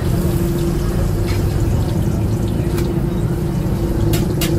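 Steady low rumble and hum at a martabak griddle, with a few sharp clicks of a metal spatula against the pan, two of them close together near the end.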